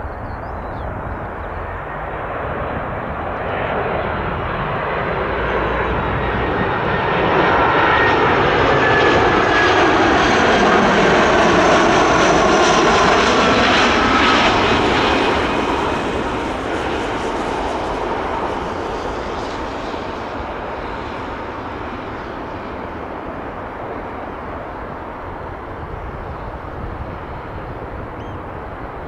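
Airbus A320 airliner passing by on its jet engines: the roar builds to a peak about halfway through, with a whine that falls in pitch as it goes past, then slowly fades.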